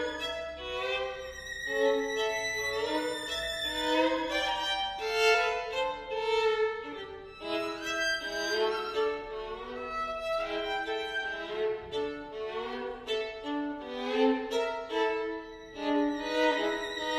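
Two violins playing together, bowed, in a lively passage of short, quickly changing notes with occasional held and wavering notes.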